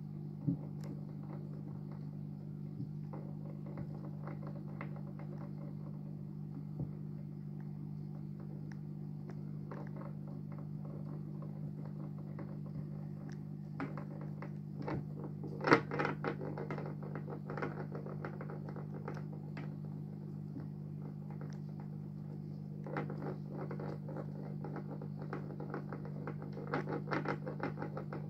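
Underwater clicks, knocks and scrapes of a yellow-bellied slider turtle pushing a small stone against the rocks of its aquarium, with its claws scraping on stone. The clicking is sparse at first, then comes in quick runs about halfway through and again near the end, over a steady low hum.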